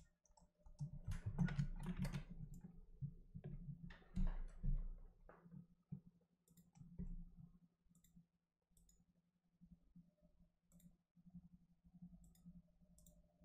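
Scattered clicks of a computer mouse and keyboard, denser in the first half and sparser later, over a faint steady hum.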